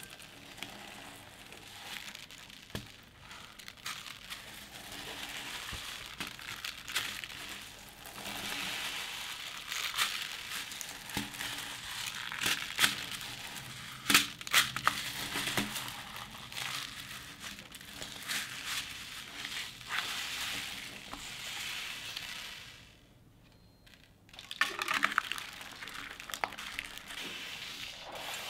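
Hands squishing and kneading a bead-filled crunchy slime in a plastic tub: a continuous wet crackling and crunching with sharp little pops as the beads are pressed. It drops away for about a second and a half near the end, then starts again.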